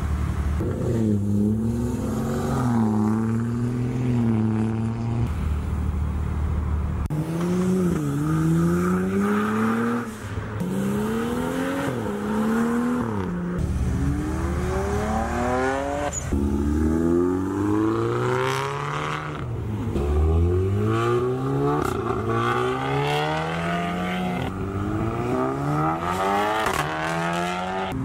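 Car engine pulling hard again and again, its pitch climbing over a second or two, then dropping before climbing again, as in hard driving through the gears.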